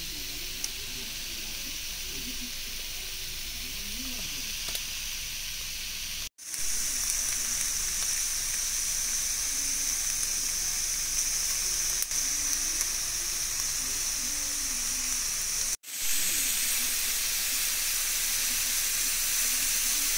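Shrimp frying in a cast-iron skillet: a steady sizzle and hiss. It breaks off for a moment twice, and it is louder after the first break.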